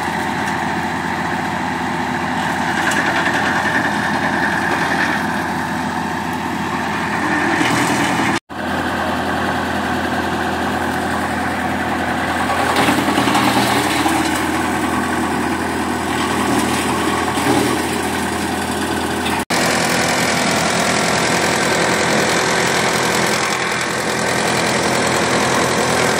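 Tractor engine driving an AGM WC X5G wood chipper through its PTO, running steadily. The sound cuts out for an instant twice, about a third and three-quarters of the way through.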